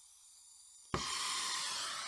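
Brazing torch lit: a faint hiss of gas, then a sudden pop about a second in as the torch ignites, followed by the loud, steady hiss of the burning flame.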